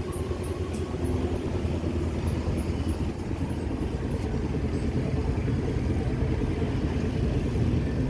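Passenger ferry's engines droning low and steady while the vessel is under way.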